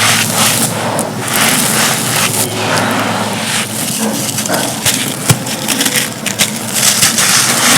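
Both hands crumbling soft, dusty, gritty cups: a steady crackly crunching with small sharp snaps throughout and a louder crack a little past five seconds in.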